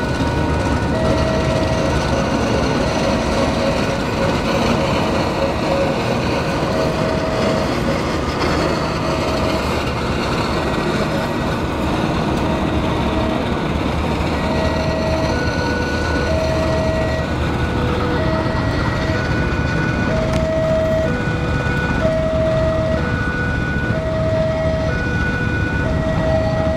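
CC201 (GE U18C) diesel-electric locomotive running past with a train of passenger coaches, engine rumble and wheels on the rails. Over it a level crossing's electronic warning alarm repeats a two-tone chime about once a second.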